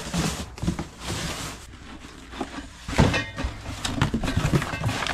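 Cardboard boxes being handled: a box is moved and its flaps pulled open, with rustling of paper and packing and a few knocks, the loudest about three seconds in.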